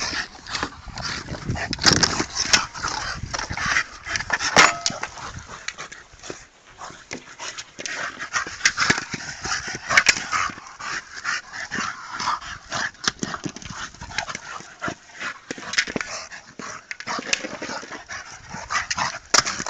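A Staffordshire bull terrier and a second dog playing rough over a hard plastic ball toy: dog vocal sounds from the play, with many sharp knocks and scuffs scattered throughout.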